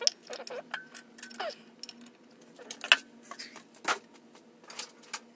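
Scattered light clicks and ticks of wires and small parts being handled, with a few short squeaks in the first second or so; the sharpest click comes about three seconds in.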